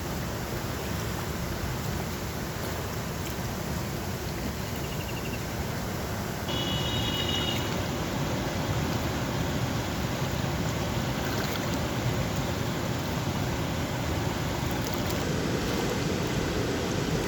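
Water rushing steadily through a sluice gate, a dense even rush that gets a little louder about six seconds in.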